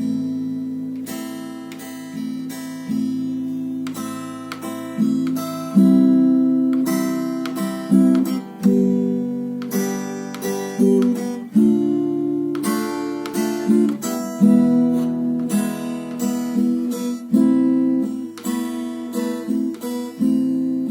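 Acoustic guitar strumming the chords of a song's verse in a steady rhythmic pattern that skips a stroke: A minor, C major, G major, D minor and E major, changing every few seconds.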